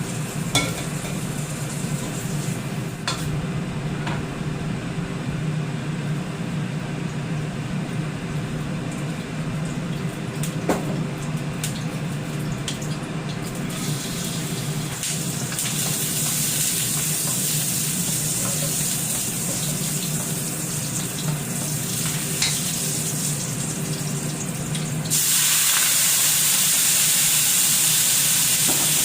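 Stovetop cooking: a steady low hum with occasional clinks, a hiss building from about halfway, then a much louder, steady sizzling hiss that starts suddenly near the end.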